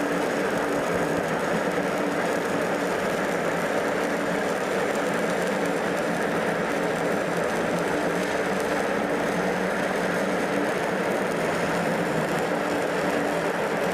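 Stick-welding arc burning steadily on a 7018 electrode in a flat-position run, a continuous even crackle and sizzle with a low steady hum underneath.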